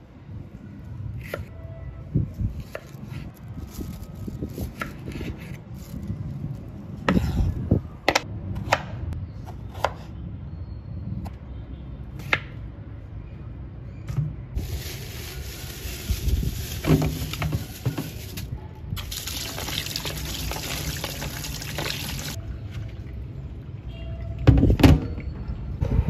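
Knife cutting vegetables on a wooden chopping board, with scattered knocks of the blade on the board. About halfway through, water runs for roughly seven seconds, with a short break in the middle.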